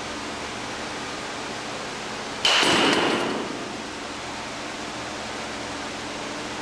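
A metal baseball bat strikes a pitched ball about two and a half seconds in: a sudden ping with a high ring that fades within about a second. A steady hiss runs underneath.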